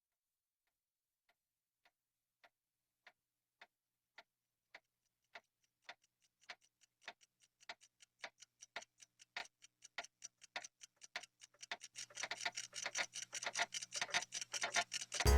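Clocks ticking: single faint ticks at first, growing louder and more frequent until many overlapping ticks crowd together. A low steady hum joins about two-thirds of the way in, and a much louder sound breaks in right at the end.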